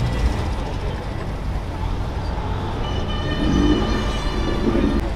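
Car engines running at low revs with a steady low rumble. About three seconds in, a steady high-pitched tone with several overtones joins and holds until near the end.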